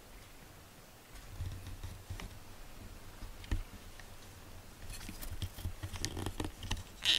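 Handling noise from a handheld camera: irregular soft bumps and rustles, with a few sharper clicks and a short scrape near the end.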